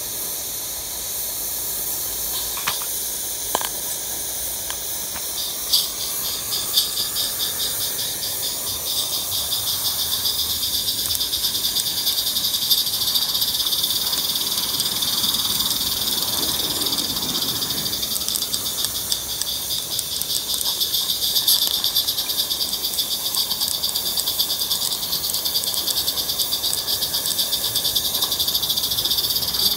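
16mm-scale Roundhouse Double Fairlie live-steam locomotive hissing steam, with two sharp clicks about three seconds in. About six seconds in, rapid, even exhaust beats start as it gets under way, a fast chuffing that keeps on and grows a little louder.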